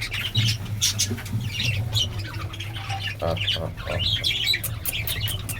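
Several pet birds squawking and chirping in quick, overlapping short calls, over a steady low hum.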